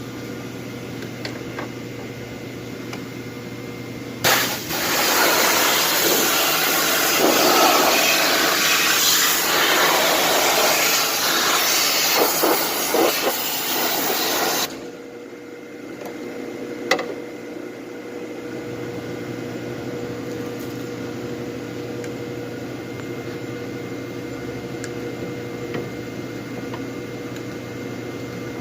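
Pressure washer spraying: a loud hiss that starts suddenly about four seconds in and cuts off about ten seconds later. A steady mechanical hum runs underneath throughout.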